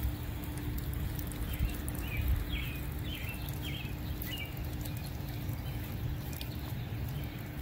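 Backyard ambience: a steady low rumble and a faint steady hum, with a bird chirping a quick run of about six short calls between two and four and a half seconds in.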